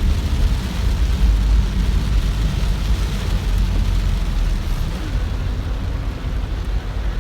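Stormy wind and rain: a heavy, wavering rumble of wind buffeting the microphone over a steady hiss.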